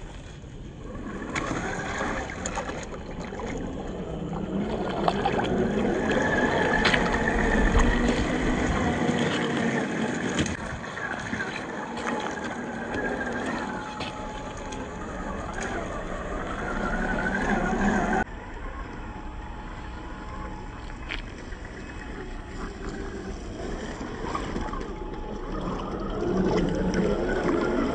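The brushed 550 electric motor and geared drivetrain of an HG P408 RC crawler whine under throttle, the pitch rising and falling as it drives. The sound drops abruptly and gets quieter about two-thirds of the way through, then swells again near the end.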